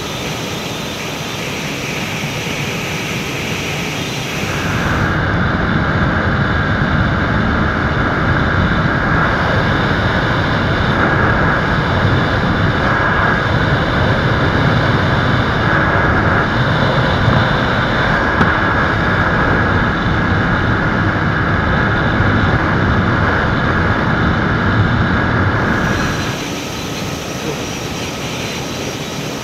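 Wind rushing over the camera microphone, mixed with two single-cylinder sport motorcycles, a Suzuki Gixxer SF 155 and a TVS Apache RTR 160 4V, running flat out near their top speed of about 120 km/h. From about five seconds in until near the end the noise turns louder and more muffled.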